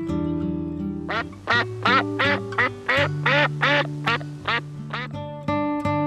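A duck quacking in a quick, even series of about a dozen quacks, starting about a second in and stopping about five seconds in, over steady background guitar music.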